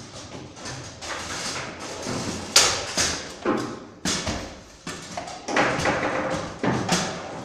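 Table football played on a Bonzini table: a run of sharp, irregular knocks and clacks as the figures strike the ball and the rods are jerked and spun. The loudest knock comes about two and a half seconds in.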